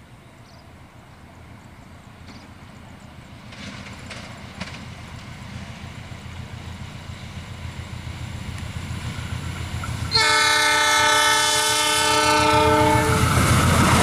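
A KAI diesel-hauled passenger train approaches at speed, its rumble growing steadily louder. About ten seconds in, the locomotive sounds a loud multi-tone air horn held for about three seconds. Near the end the wheels clatter on the rails as the train passes close by.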